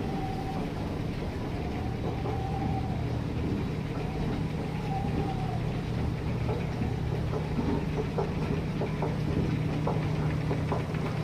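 Escalator running with a steady mechanical hum, a few faint drawn-out squeals in the first half and light clicks near the end as the steps reach the top.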